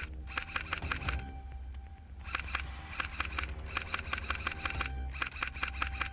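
Airsoft electric rifle firing on full auto, about ten shots a second, in three bursts: a short one at the start, a long one of about three seconds from about two seconds in, and another near the end.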